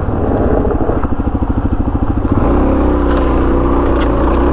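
Dual-sport motorcycle engine running at low revs with a fast, even chugging pulse. About two seconds in it picks up and holds steady at higher revs.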